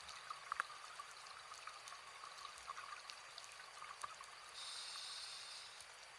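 Faint underwater sound on a scuba dive: scattered crackling clicks and trickling over a low hiss. About four and a half seconds in comes a steady high hiss lasting a little over a second, a diver drawing a breath through the regulator.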